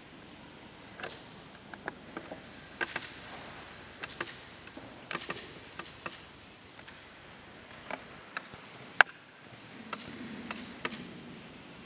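Faint, irregular small clicks and knocks over quiet room tone, about a dozen spread unevenly, with one sharper click about nine seconds in.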